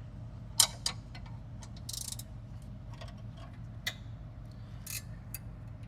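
Ratchet wrench clicking in short runs and single clicks, with a few sharper metal clinks, as bolts are tightened by hand without a torque wrench.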